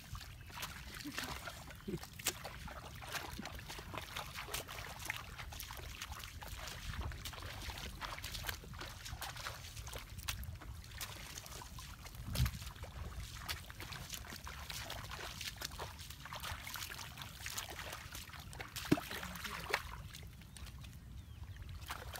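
A hoe chopping and scraping into wet mud, with shallow muddy water sloshing and splashing as people wade through it. There are scattered knocks throughout, and one louder dull thump about twelve seconds in.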